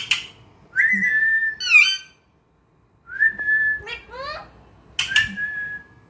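Alexandrine parakeet whistling: a held, level whistle note followed by a rising, chirpy call, repeated three times, with short harsh notes at the start and about five seconds in.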